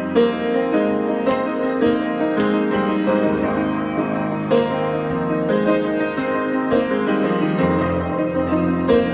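Piano improvisation, unaccompanied: chords ring on and new notes are struck every second or two over low, held bass notes.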